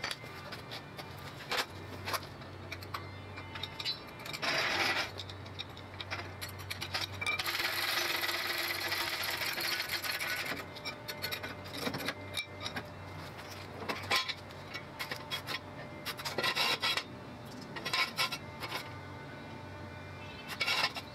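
Hand tools knocking and clinking against the rusted hub and brake drum of a golf cart, with scattered sharp metal clicks and a steady scraping noise lasting a few seconds around the middle.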